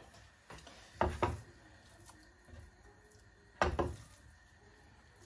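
Kitchen things knocking as they are handled at the stove and counter: two short clatters about two and a half seconds apart, each a quick double knock.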